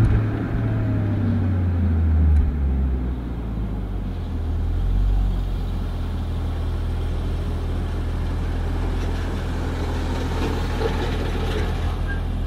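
Stock exhaust of a Toyota Supra 2.5GT's twin-turbo straight-six in city driving, shifted early at low revs. It pulls with a strong low drone for the first couple of seconds, then settles to a steady low hum.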